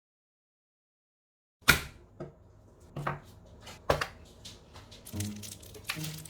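A few sharp clicks and knocks, the loudest about two seconds in, after a moment of silence; soft music comes in near the end.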